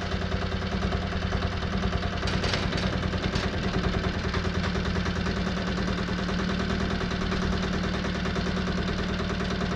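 Wood-Mizer LT15 sawmill's gas engine running steadily at low speed with an even pulsing beat, just after being started.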